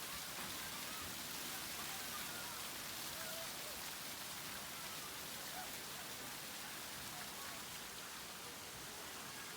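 Steady hiss of water spraying and splashing down at a water park, with faint distant voices calling out now and then.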